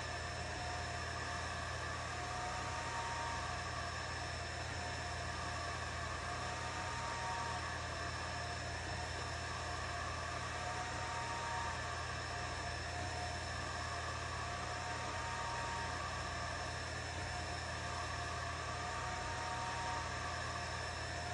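Atomstack A10 Pro diode laser engraver at work while engraving a tile. It makes a steady fan-like hum and hiss with a constant high whine, and a mid-pitched whine that alternates between two pitches every couple of seconds.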